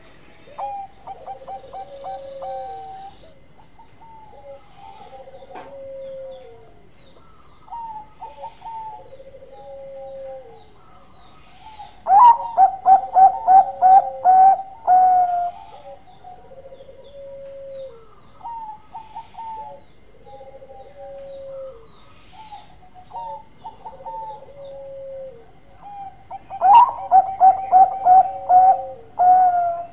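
Zebra dove (perkutut) cooing: repeated runs of short, trilled coos, higher notes answered by lower falling ones. Two louder bursts of rapid staccato notes come about twelve seconds in and again near the end.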